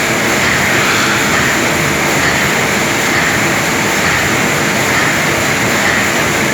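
NEWLONG automatic paper shopping bag making machine running steadily, a loud continuous mechanical rumble and clatter.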